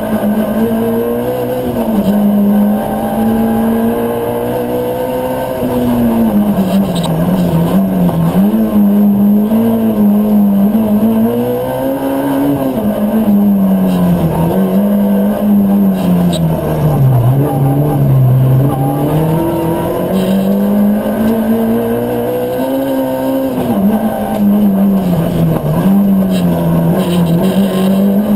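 Ford Fiesta R2 rally car's four-cylinder engine, heard from inside the cabin at full pace on a stage: the revs climb and fall again and again as it accelerates, shifts and brakes for corners, with one deep drop in revs about two-thirds of the way through.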